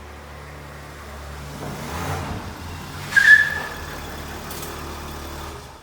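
Car engine running steadily, pulling louder about two seconds in, with a short high squeal just after three seconds; the sound cuts off abruptly at the end.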